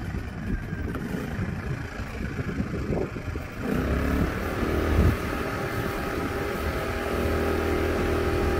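WEN 56235i inverter generator's small four-stroke engine running on its first start-up, uneven at first; about three and a half seconds in it picks up speed and settles into a steady running note.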